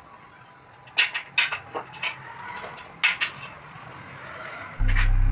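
A quick run of sharp knocks and clatters over a low background noise. Music with a heavy bass beat comes in near the end.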